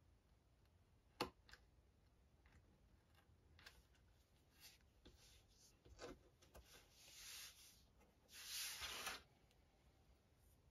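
Faint handling noises at a craft cutting mat: a sharp click about a second in, a few light taps, and a short rubbing rustle about eight seconds in, as a hobby knife is laid down and a tiny cut piece of wood is picked up.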